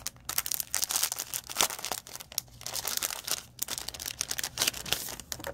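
A clear plastic packet crinkling in irregular rustles as paper ephemera pieces are handled and pulled out of it.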